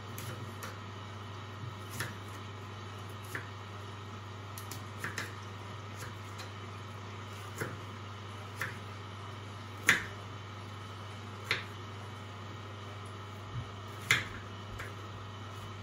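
Small kitchen knife knocking on a wooden chopping board while nectarines are sliced and pitted: about a dozen sharp, irregular taps, the loudest ones in the second half.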